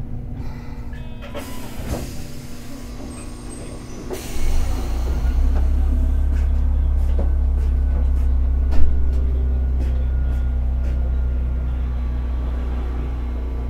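A Hakodate 3000-type tram heard from on board. Two short air hisses come first, then a loud steady low hum sets in about four seconds in, with faint rising tones, regular light clicks and one sharp clunk near the nine-second mark.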